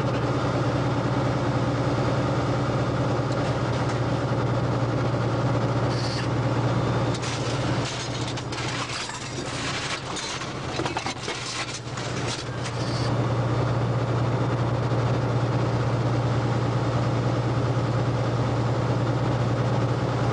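T-72B tank's V-84 twelve-cylinder diesel engine idling, heard from inside the tank as a steady drone with a strong low hum. About a third of the way in, a run of clicks and knocks comes over it for several seconds while the drone dips slightly.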